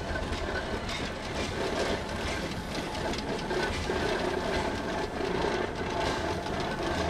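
A 1928 Climax geared steam locomotive running slowly past, its exhaust chuffing in quick, uneven beats over the sound of its running gear.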